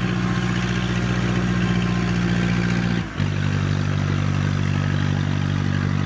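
A farm machine's engine runs steadily at a constant speed. About three seconds in, the sound dips briefly, and then it carries on with a slightly different tone.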